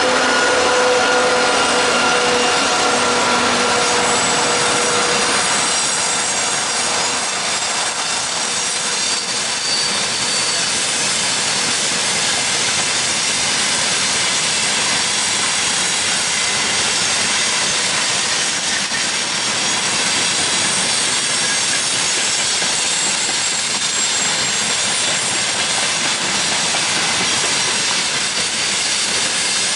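Freight train rolling past on the rails: a steady rush of wheel and rail noise from the wagons. At the start, a whine of several steady tones fades out over the first six seconds or so.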